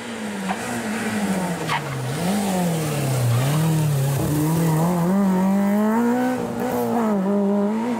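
Peugeot 106 rally car's four-cylinder engine coming down through the gears as it brakes into a tight bend, the note falling in steps, then rising as it accelerates out and away.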